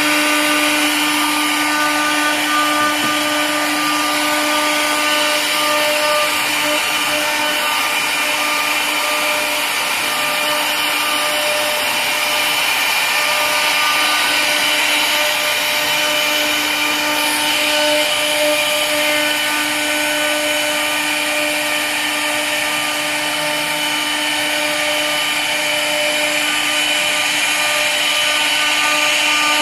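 Two 4.5 kW water-cooled CNC router spindles running with a steady whine while their bits carve 3D relief panels into a wood board, with the noise of the cutting underneath.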